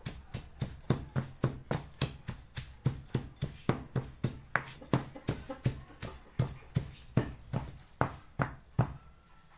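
Pestle pounding roasted peanuts in a stone mortar, a steady rhythm of about three dull knocks a second as the nuts are crushed to a coarse powder; the pounding stops shortly before the end.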